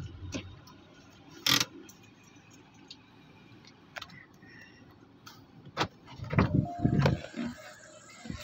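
Clicks and knocks inside a stopped car as it is handled and got out of: one sharp click about one and a half seconds in, then a cluster of thumps and clicks near the end, with a brief tone, as the door is opened.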